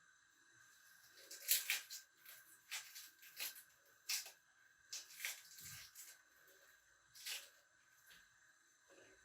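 Dry brown onion skin being peeled off a halved onion: an irregular run of short papery crackles and tears, starting about a second in and stopping about two seconds before the end.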